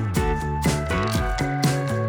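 Background music with a steady beat: a funk-style groove with bass and guitar.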